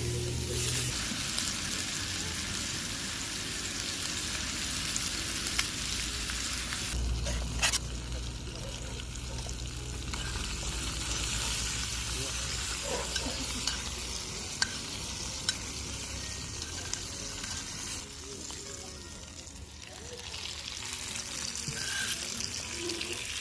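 Meat frying in a cast-iron skillet: a steady sizzling hiss with a few sharp pops of spattering fat.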